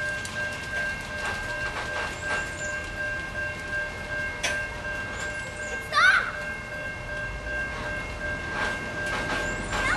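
Stopped CSX freight train of covered hopper cars, with a steady high ringing tone and a few light metallic clicks. A brief high squeal stands out about six seconds in.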